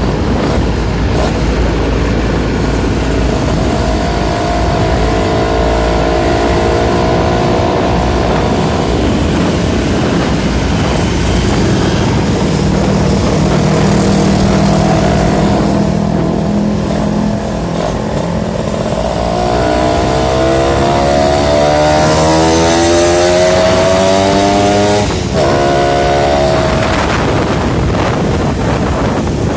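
Suzuki Tornado's two-stroke single-cylinder engine running under way. Its pitch climbs steadily as the bike accelerates in the second half, then drops about 25 s in and builds again.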